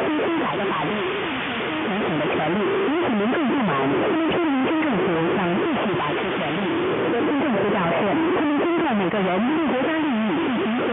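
Music received on a shortwave AM radio, muffled and cut off above the mid-range, with several wavering melodic lines overlapping and clashing under a bed of static.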